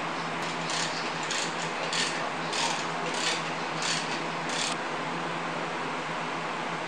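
Chain hoist ratcheting in about eight short clicking bursts, a little over half a second apart, as it lowers a hanging concrete casting.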